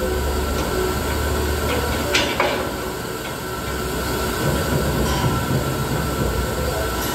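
Nitrogen cylinder filling station running: a steady rumble and hiss as gas charges a bank of cylinders through a hose manifold. Two short sharp clicks come about two seconds in.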